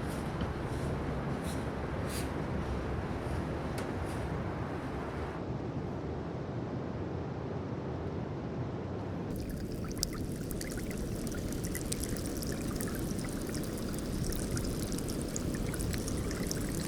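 Glacial meltwater trickling and running in a steady watery rush. The sound changes abruptly twice. From about halfway through, a dense crackle of tiny clicks lies over the water.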